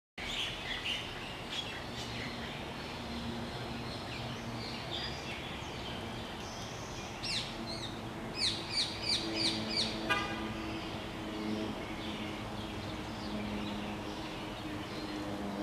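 Small birds chirping, with a run of five loud, falling chirps about halfway through, followed at once by a quick rattle; a faint steady low hum runs underneath.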